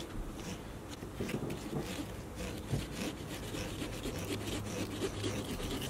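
Pumpkins being sawn open with small carving knives: quick, irregular rasping strokes as the blades cut through the rind around the lids.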